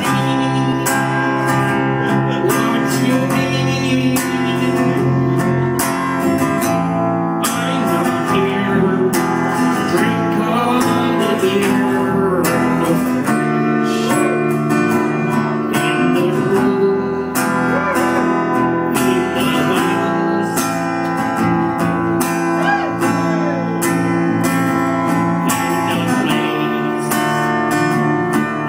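Live band music: strummed acoustic guitar and electric bass, with a harmonica cupped against the vocal microphone playing held and bending notes.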